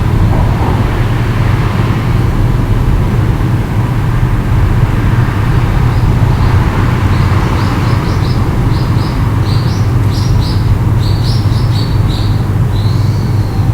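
A steady low rumble, with a small bird chirping a quick run of short high notes over it from about halfway through, ending on a longer held note.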